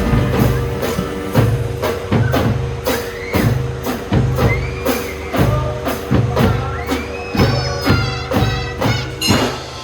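Children's marching drum band playing: drums keep a steady beat under held melody notes, and the music stops just at the end.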